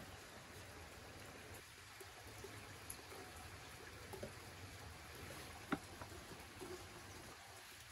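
Faint steady hiss of outdoor background with a few soft taps as dried apricots are dropped by hand into a clay pot, and one sharper click about three-quarters of the way through.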